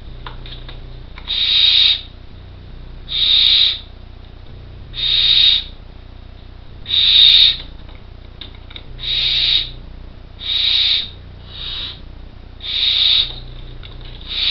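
Barn owl chicks giving their rasping, hissing 'snoring' begging calls, which signal hunger for food from the parents. The calls come as repeated hisses of under a second each, about one every two seconds, with one shorter hiss near the end.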